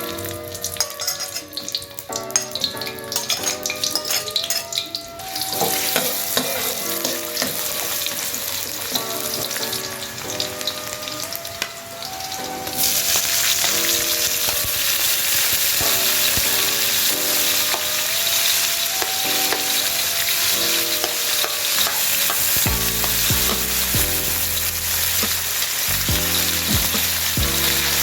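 Food frying in hot oil: a steady sizzle that starts about five seconds in and grows louder about halfway through, with background music underneath.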